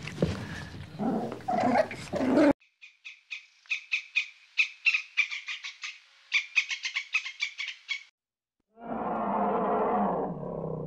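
A sequence of different animal calls, cut one after another. First a harsh call for about two seconds. Then a long run of rapid, high, clicking chirps lasting about five seconds. After a brief gap, a lower rough call near the end.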